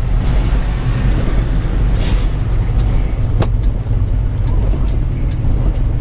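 Semi-truck engine running under a steady low drone, heard from inside the cab, with a couple of faint clicks about two and three and a half seconds in.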